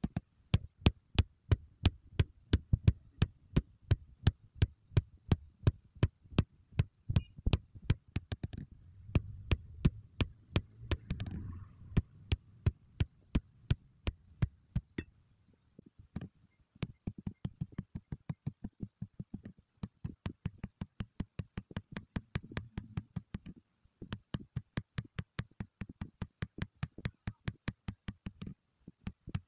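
Hand hammer striking a hot steel knife blade on an anvil, steady blows at about three a second with a couple of short pauses as the blade is forged.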